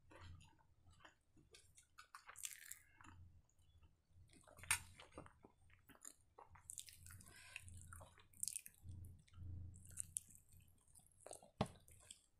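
Close-up chewing and wet mouth sounds of a person eating green masala gravy chicken by hand, with scattered smacks and a couple of sharp clicks, the loudest about five seconds in and near the end.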